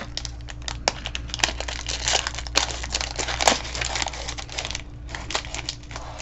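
Model-kit packaging crinkling and rustling as it is handled and opened: irregular crackles and small clicks, over a faint steady hum.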